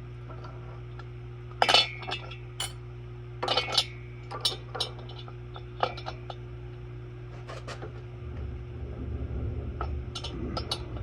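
Metal tools and parts clinking and tapping on a workbench, about a dozen sharp clinks in small clusters, over a steady low machine hum. A low rumble swells up in the last few seconds.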